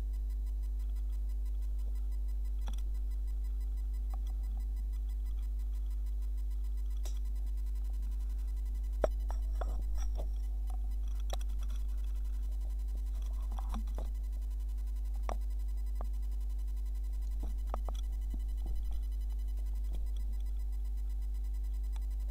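Steady low electrical hum in a laptop's built-in microphone, with scattered light knocks and clatters as a kitten bumps against the laptop. The sharpest knock comes about nine seconds in.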